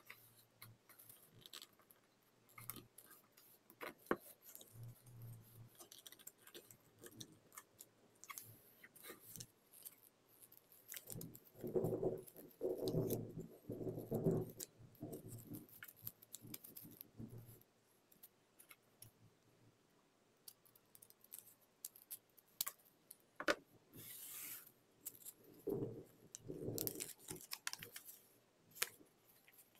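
A sheet of white origami paper being folded and creased by hand: scattered crinkles and small taps, with louder stretches of paper rustling and crackling in the middle and again near the end as the sheet is worked and opened out.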